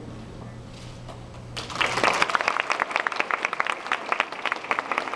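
An audience breaks into applause about a second and a half in, after a short quiet pause. Many separate claps run on steadily.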